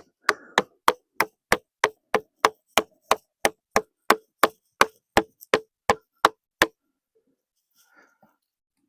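A wood chisel driven into timber with steady, evenly spaced blows, about three a second and some twenty in all, chopping out the waste for a tenon. The blows stop shortly before the end.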